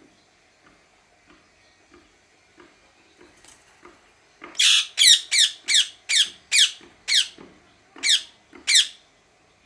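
Ring-necked parakeet calling: a few soft calls, then a run of nine loud, harsh screeches, each falling in pitch, about two a second.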